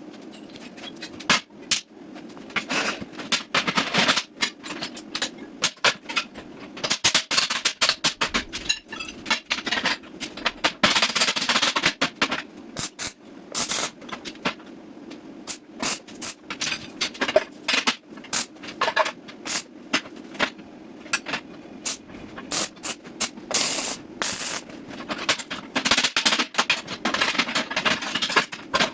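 MIG welder arc crackling and sputtering in a run of short welds on steel, each lasting a second or a few seconds with brief pauses between, over a steady low hum.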